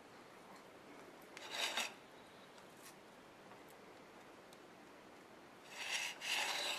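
Faint rubbing and scraping from hands handling small craft pieces and a plate, in two short bursts: about a second and a half in, and again near the end.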